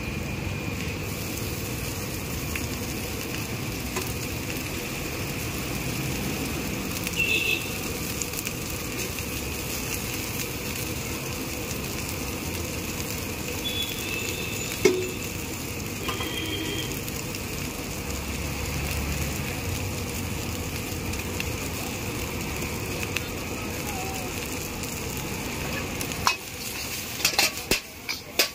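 Vegetables and noodles sizzling steadily in a hot iron wok, with an occasional single knock. Near the end the sizzle drops and a run of quick metallic clanks and scrapes begins: a metal ladle striking the wok.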